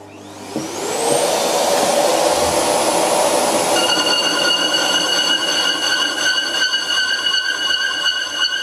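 Old bench lathe and a shop vacuum starting up together, a rising whine over a steady rushing noise. From about four seconds in, a steady high ringing joins as the carbide insert cuts the cast-iron brake rotor, which the owner thinks sounds like the insert may already be dull.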